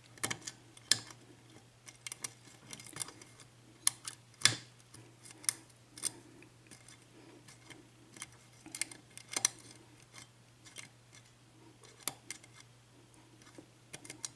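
Irregular small metallic clicks and ticks of a lock pick working the pin stack of an Assa 6-pin oval cylinder lock, single-pin picking toward a false set. A few clicks are sharper, about four and a half seconds in and again near nine and a half seconds.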